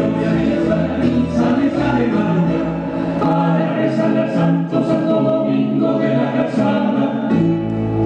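Folk music for a dance: a group of voices singing together over instrumental accompaniment.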